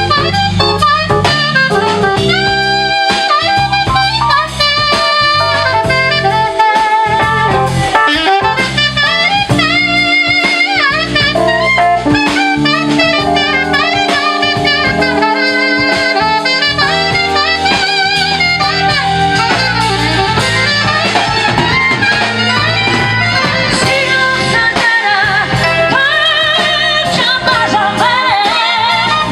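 A live band playing an instrumental break between sung verses of an Armenian pop song, with a saxophone carrying the lead melody over bass and drums.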